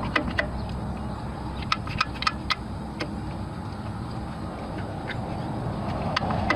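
Light metallic clicks and taps, a few at a time, as a distributor is wiggled and worked down into its bore in the engine block, over a steady low rumble of background noise.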